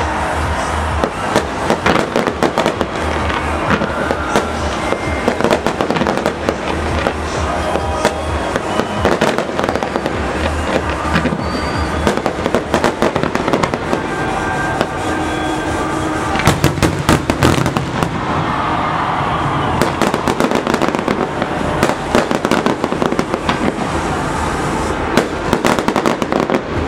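Fireworks finale barrage: a dense, unbroken run of bangs and crackling reports, many per second, thickest about two-thirds of the way through.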